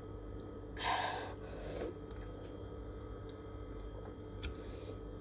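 A person's breathy exhale after gulping a fruit smoothie, a short sigh about a second in followed by a softer breath, over a steady low hum.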